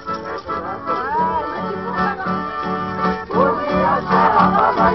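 Piano accordion playing lively dance music over a steady, quick bass beat, getting louder about three seconds in.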